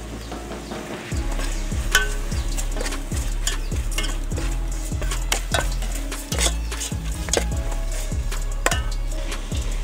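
Metal spatula stirring, scraping and knocking against an aluminium pot as meat fries in a yellow spice paste, with a sizzle. The knocks come irregularly, several times a second, starting about a second in.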